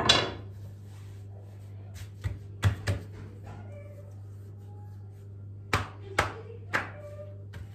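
Pide dough being handled on a silicone pastry mat: a wooden rolling pin set down with a knock at the start, then scattered soft taps and slaps as the thin sheet of dough is patted and lifted, over a steady low hum.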